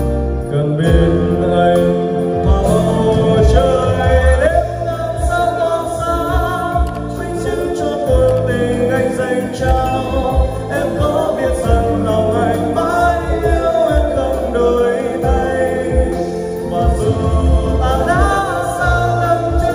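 A man singing karaoke into a handheld microphone over a backing track with strong bass, both played loud through an event PA system of line-array speakers and subwoofers.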